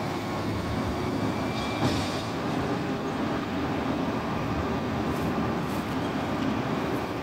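Heil Half Pack Odyssey front-loader garbage truck standing with its diesel engine running steadily, with a brief clatter about two seconds in.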